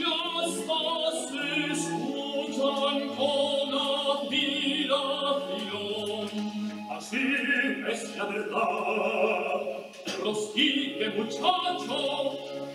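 Operatic singing over instrumental accompaniment, with held, wavering notes and a brief drop in loudness about ten seconds in.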